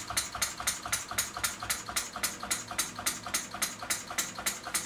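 Hand-built 12 cm single-cylinder four-stroke A-frame model diesel engine running on kerosene, its firing beats even at about five a second. The engine has just been started from cold by hand.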